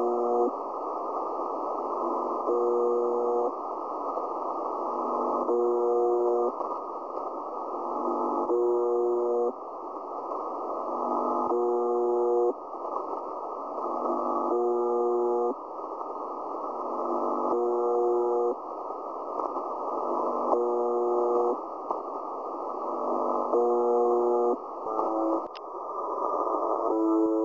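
Shortwave radio heard through a WebSDR receiver in upper sideband: a buzzing tone about a second long, repeating roughly every three seconds over steady static hiss. This is the pattern of the UVB-76 'Buzzer' station, picked up here on 4675 kHz as a possible second buzzer. Near the end the receiver is retuned to UVB-76's own 4625 kHz with a brief click, and the same buzz carries on.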